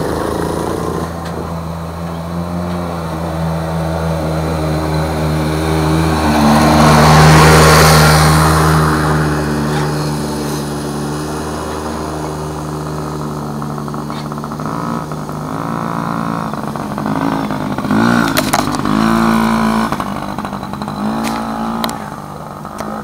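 Small 50cc dirt bike engine running as the bike rides past, growing loudest about seven seconds in as it passes close, then fading as it rides away.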